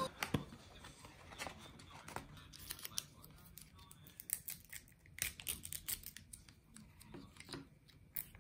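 Foil lids being peeled off small plastic dipping-sauce cups, with scattered light crinkles, ticks and tearing sounds as the cups and their wrappers are handled.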